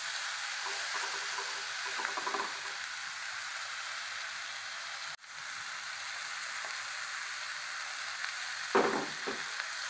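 Chopped vegetables frying in oil in a steel pan, a steady sizzle, stirred with a wooden spatula that knocks and scrapes against the pan a few times near the end. The sound cuts out for an instant about halfway.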